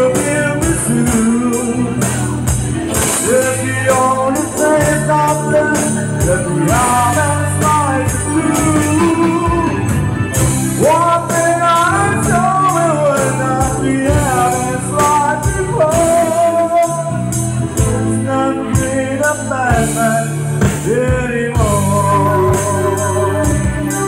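Live band playing a song: a man singing over acoustic guitar and keyboards, with a steady bass line and light percussion.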